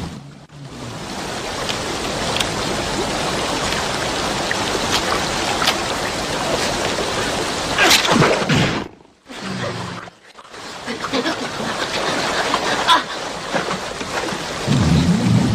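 A fast river rushing steadily over rocks. About eight seconds in there is a loud splash-like burst, and near the end a low animal growl.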